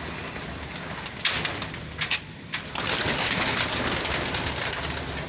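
Caged pigeons feeding: quick, irregular clicks of beaks pecking at grain. About three seconds in, a louder, steady rustling starts.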